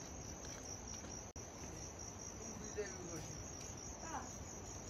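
Insects, crickets by the sound, trilling steadily in a continuous high-pitched buzz. A couple of faint short chirps come through about three and four seconds in.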